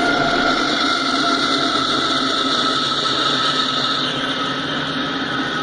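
Double-stack intermodal freight train rolling past at close range: a steady rush of wheels on rail, with a high whine that slowly drops in pitch.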